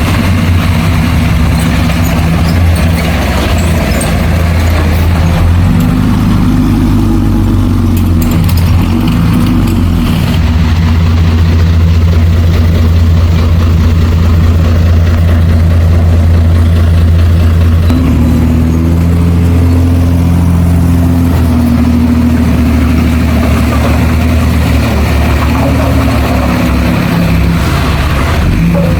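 Heavy diesel engine of earthmoving machinery running steadily, its speed changing a few times, around six seconds in and again at about eighteen seconds.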